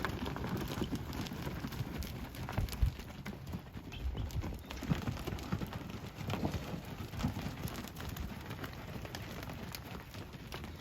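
Cattle moving about: irregular hoof thuds and shuffling, with scattered clicks and a few louder low knocks.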